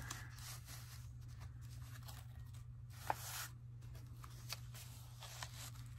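Paper tags and pages of a handmade junk journal rustling softly as they are lifted and turned by hand, with a light tap about three seconds in. A steady low hum runs underneath.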